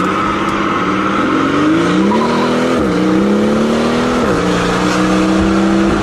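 Mercedes-AMG S65's twin-turbo V12 through a catless exhaust with its valves open, heard from inside the cabin with the windows up, pulling under acceleration. The engine note climbs, drops back sharply about halfway through as the gearbox shifts up, climbs again, drops with a second upshift, then runs at a steady pitch.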